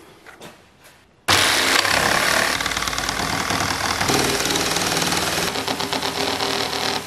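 Corded Skil jigsaw starting suddenly about a second in and cutting lengthwise through 4-inch PVC pipe, its reciprocating blade buzzing loudly and steadily through the plastic.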